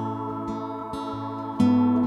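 Acoustic guitar strummed over a held ambient pad drone from an Aerospace Audio Atmosphere pedal. A fresh, louder strum comes about one and a half seconds in.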